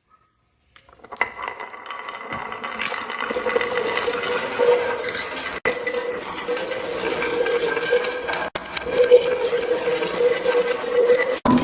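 Many marbles rolling and clattering down a marble run track, a dense continuous rattle that starts about a second in and drops out abruptly three times.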